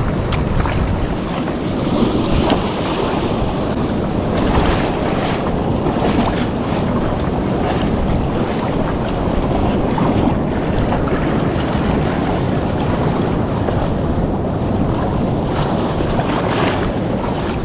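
Strong wind buffeting the microphone over the steady wash of ocean surf.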